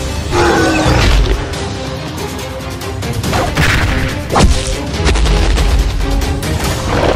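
Background fight-scene music layered with crashing and booming impact sound effects, with a sharp hit about four and a half seconds in.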